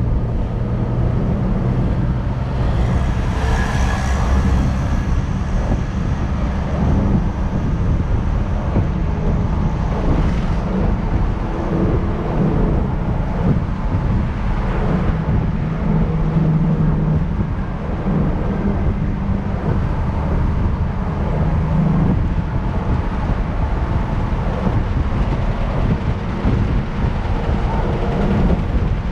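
Inside a moving city bus: a steady low rumble of engine and road noise, with the engine note shifting in pitch now and then. About four seconds in, a brief higher-pitched noise rises over the rumble.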